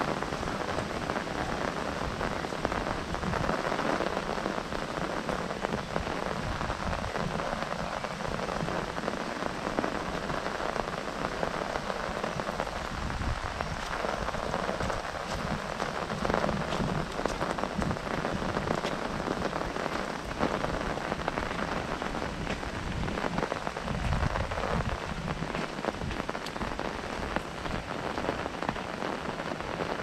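Steady rain pattering on an umbrella held overhead, with low gusts of wind rising and falling now and then.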